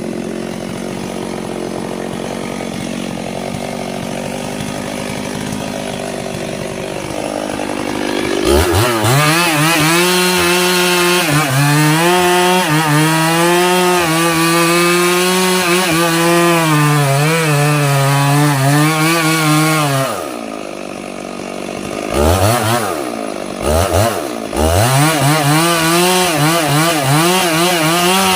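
Two-stroke Stihl chainsaw cutting sengon wood. It runs steadily at first, then is opened up to full throttle about a third of the way in, its pitch wavering as the chain bogs under load in the cut for about twelve seconds. It drops back, is blipped twice, and goes to full throttle again near the end.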